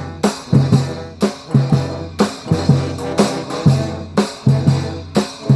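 Brass band with drums playing a rhythmic tune: sustained low brass notes under sharp drum hits in a repeating pattern, about two strong beats a second.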